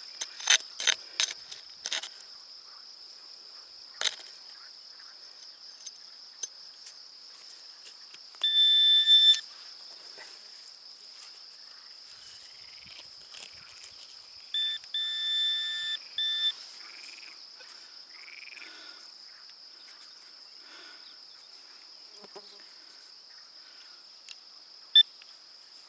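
Handheld metal-detecting pinpointer sounding its alert twice, a steady high buzz of about a second and then a broken, pulsing buzz of about two seconds, signalling metal in the dug soil. Before that, a metal trowel scrapes and clicks in the earth, and a steady high chirring of crickets runs under everything.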